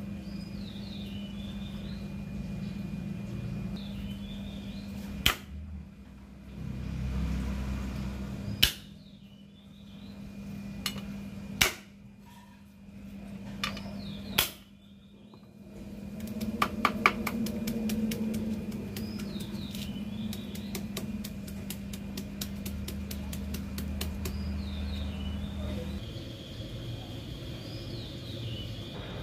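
Cleaver strikes on a wooden chopping block: a few single sharp knocks, then a quick run of chops about two-thirds of the way through. A steady low hum runs underneath, and a bird repeats a short falling chirp every few seconds.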